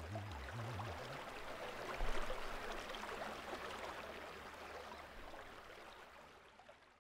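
A small rocky creek babbling and trickling steadily, then fading out near the end, with a brief low bump about two seconds in.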